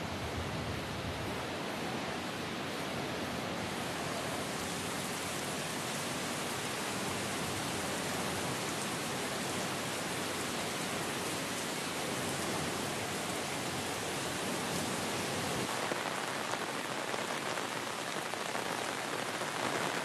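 Heavy rain falling steadily, the dense even hiss of a downpour.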